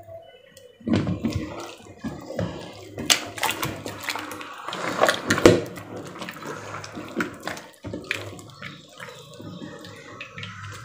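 Hands squeezing and churning homemade butter in a steel bowl of buttermilk: irregular wet sloshing and squelching, with small knocks. The butter has come together and separated from the buttermilk.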